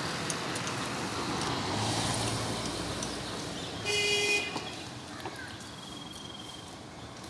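Street traffic noise with a motorcycle passing, then a vehicle horn gives one short honk about four seconds in.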